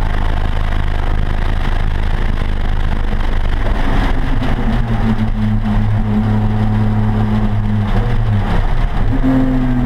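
Race car engine and wind noise heard inside the stripped, caged cabin as the car brakes hard from high speed. Partway through, the engine settles into a steady droning note. Near the end the pitch jumps up and falls away again, as on a downshift.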